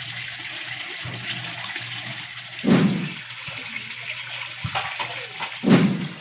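Water pouring and swirling over the rim into a home-made bucket pond skimmer, a steady rushing trickle with a low steady hum underneath. Two louder low gurgles break in, about three seconds apart.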